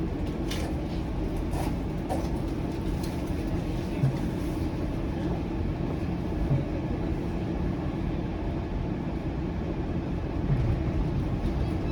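Bombardier Flexity Outlook low-floor streetcar running along the track, heard from inside the car: a steady low rumble of wheels on rail. A few faint clicks come in the first couple of seconds, and a light knock about four seconds in.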